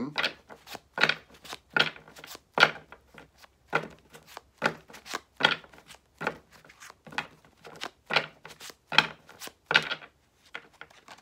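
Gold-foiled Nefertari tarot deck being shuffled by hand, the cards clapping together in quick strokes about two a second, which stop near the end.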